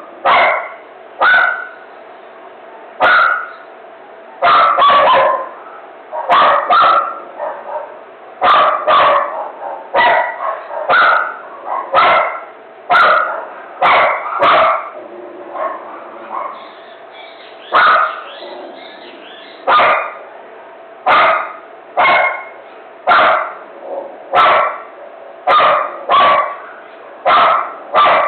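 A dog barking over and over in a frenzy, single barks and quick runs of two or three, roughly one to two a second.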